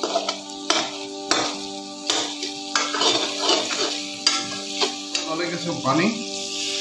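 Steel spoon stirring and scraping a masala frying in mustard oil in an aluminium kadai. The oil sizzles steadily, and the spoon clinks sharply and irregularly against the pan.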